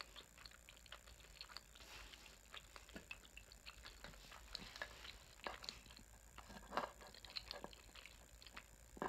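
Close-miked chewing of sushi: faint, irregular wet mouth clicks and smacks, with a few louder clicks about two-thirds of the way in.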